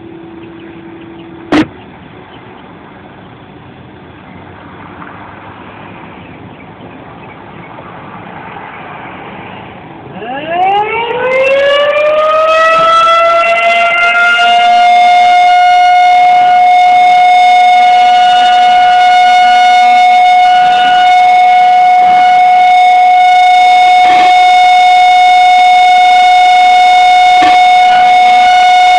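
Outdoor warning siren on battery backup power winding up about ten seconds in: a rising wail that levels off into a steady, very loud tone and holds. Before it there is only a low background and a single click.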